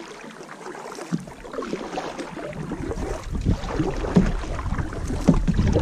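Canoe out on a river: water and hull noise with small scattered knocks and splashes. Wind starts rumbling on the microphone about halfway through and grows louder.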